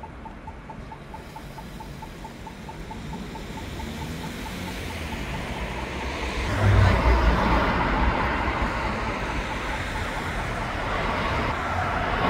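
City road traffic, with a vehicle approaching and passing close, loudest about seven seconds in. A faint rapid ticking, about four a second, fades out a few seconds in.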